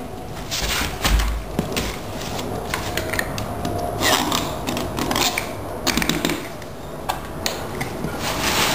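Plastic gas can being handled and its pour spout readied for refuelling: scattered clicks, knocks and rustles of plastic, with a low thump about a second in.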